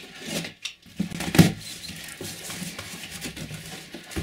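A box cutter slitting the packing tape on a large cardboard box, then the cardboard flaps being pulled open and handled, with ongoing rustling and scraping of cardboard. One loud sharp sound about a second and a half in.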